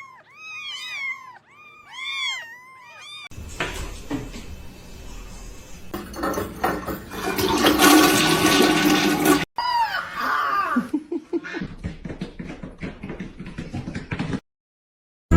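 A cat meowing repeatedly in short, arching calls. Then a toilet flushing, the rush of water building to its loudest about eight seconds in before cutting off abruptly. A few more meows and some clicking follow.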